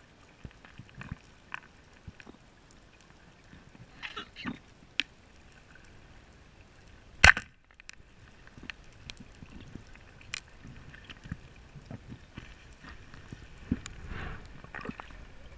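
Heard underwater: faint scattered clicks and crackles, then one loud, sharp crack about seven seconds in, a speargun being fired.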